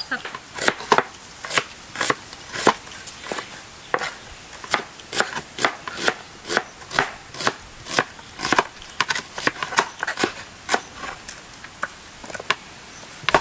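Knife chopping onions on a cutting board: a quick, uneven run of sharp strokes, about three a second.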